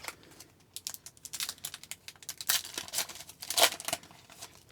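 A hockey card pack's wrapper being torn open and crinkled by hand: a run of irregular crackles and rips, loudest near the end.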